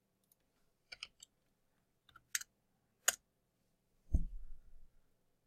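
Computer mouse clicks: a handful of short, sharp clicks over the first three seconds, then a louder low thump about four seconds in.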